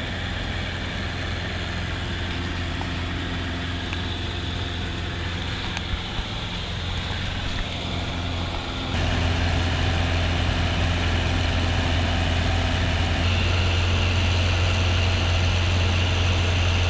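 Piper Cub bush plane's engine and propeller droning steadily in flight, heard from inside the cabin. About nine seconds in the drone steps up and gets louder.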